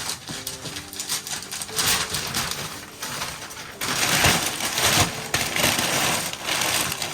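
Wrapping paper being torn and crumpled as a present is unwrapped, a rustling, crackling noise that grows loudest for a couple of seconds past the middle.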